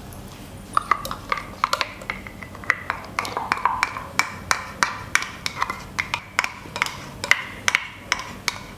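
Spatula scraping and tapping against the inside of a steel mixer-grinder jar while thick ground paste is emptied out: a run of irregular sharp clicks and knocks, about two or three a second.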